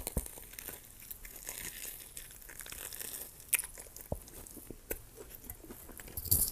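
Close-up biting and chewing of a burrito coated in crushed Hot Cheetos, heard as scattered sharp crackles and mouth noises.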